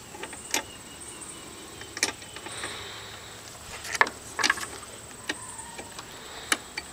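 A handful of short, light metallic clicks and clinks, spaced irregularly, from a homemade wooden trebuchet's steel safety chain and rope trigger fitting as they are handled while the trigger is set.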